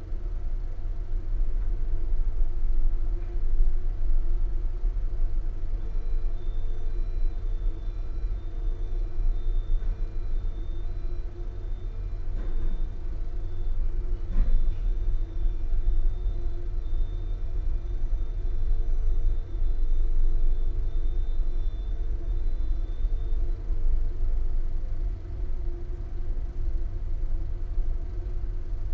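Steady low rumble of engines on the ferry's vehicle deck, with a steady mid-pitched hum. A faint high whine comes in about six seconds in and fades out a little past twenty seconds.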